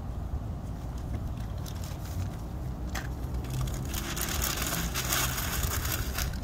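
Sheets of newspaper being handled and crumpled by hand into a wad. The crinkling grows loudest in the last couple of seconds, over a steady low rumble.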